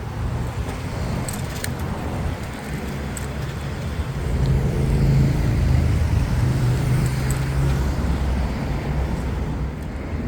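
City traffic heard from a bicycle: a motor vehicle's engine passes close by, swelling to its loudest in the middle, over a steady rumble of road noise, with a few light clicks.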